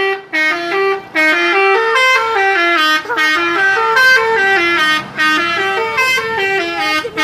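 Indonesian telolet bus horn, a multi-tone horn on a bus, playing a quick melody of short stepping notes in several phrases with brief breaks between them.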